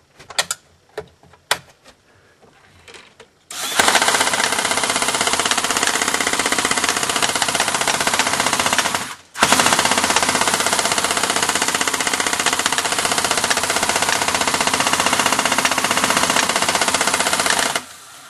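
Airsoft dual minigun test-firing in two long continuous bursts, a fast, dense, loud rattle broken by a short pause about halfway, and working properly. A few sharp clicks come before the firing starts.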